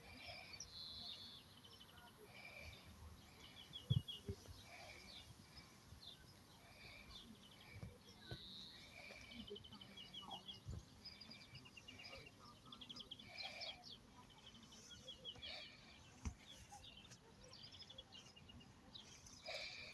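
Faint small birds chirping outdoors, repeating short high notes and quick rattling trills every second or two. A few soft low thumps occur along the way, the clearest about four seconds in.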